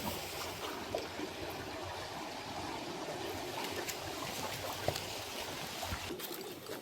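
River water running and trickling, a steady rushing hiss.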